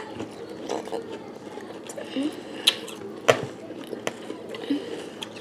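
Eating sounds: flake cereal crunched and chewed, with a few sharp clicks of spoons against plastic bowls, two of them about a second past the middle, and brief faint voice sounds.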